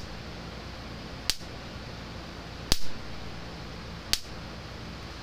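Gallagher M1100 electric fence energizer's pulses arcing across two screwdrivers held over its output terminals: a sharp spark snap about every 1.4 seconds, three times. It gives a nice hard shock, a strong output from the repaired unit, which reads about 9,000 volts.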